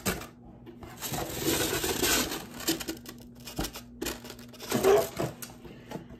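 Rummaging in a cardboard shipping box: packing material crinkling and rustling, with a few light knocks and clicks against the cardboard.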